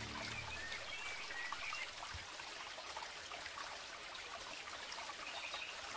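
Steady hiss of a running stream, with a few faint bird chirps in the first second or so.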